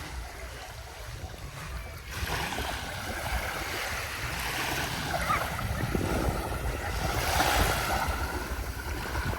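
Waves washing in on a sandy beach, the surf growing louder about two seconds in and swelling to its loudest near the end, with wind rumbling on the microphone.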